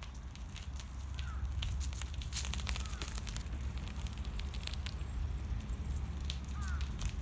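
Irregular crackling and rustling clicks, thickest a couple of seconds in, over a steady low rumble. Crows caw faintly in the distance a few times.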